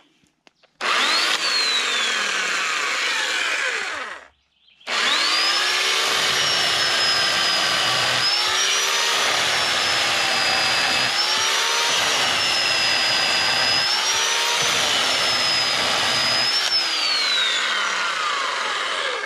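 Poulan 3.5 hp corded electric chainsaw running: a short burst of the motor's whine, a brief stop, then a long run as it cuts through a log, the pitch dipping several times as the chain bites into the wood and recovering. Near the end the pitch falls and the motor stops.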